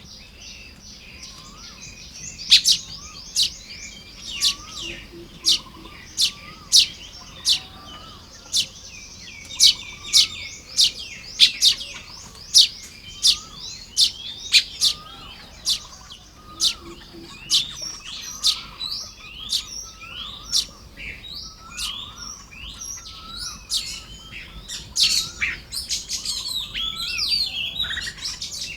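Baya weavers calling while building their nests: a series of sharp, high, quickly falling chirps, about one to two a second, becoming a denser overlapping chatter near the end. A fainter, lower rising note repeats underneath.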